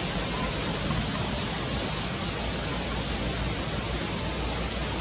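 Steady, even rushing noise of outdoor background, with no distinct calls or knocks.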